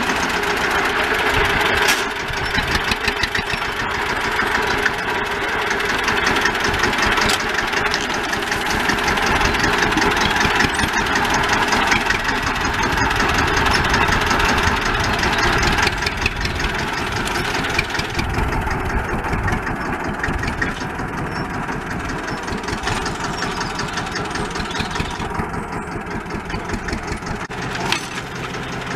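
1964 Deutz D15 tractor's air-cooled single-cylinder diesel running steadily under load while pulling a plough, with rapid even firing beats. It grows somewhat quieter in the second half.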